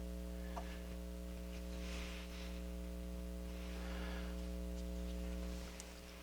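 Steady low electrical mains hum, with faint brief rustling of handling about two and four seconds in; the hum drops a little near the end.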